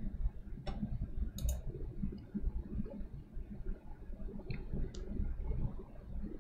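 A few scattered, short clicks of a computer mouse, one of them advancing the presentation slide, over a low, steady room rumble.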